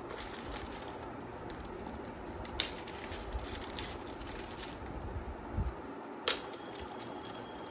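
Clear plastic zip bags crinkling and rustling as hands handle the small packets of diamond painting tools, with two sharp clicks, one a few seconds in and one near the end.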